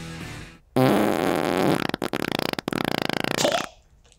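A long, loud fart sound, raspy and wavering in pitch, starting just under a second in and lasting about three seconds, with two brief breaks in the middle.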